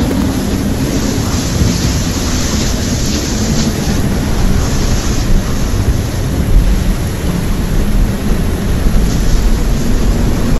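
Storm wind and heavy rain making a loud, dense roar, with gusts buffeting the microphone in a deep rumble that is strongest in the second half.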